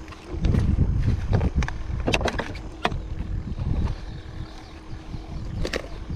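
Wind rumbling on the microphone, with a cluster of sharp clicks and knocks about two seconds in and another near the end.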